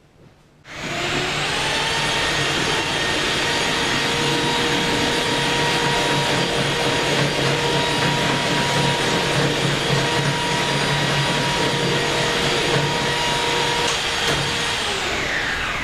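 Rotary hammer drill (перфоратор) starting abruptly and running steadily, then winding down in pitch as its motor spins down near the end.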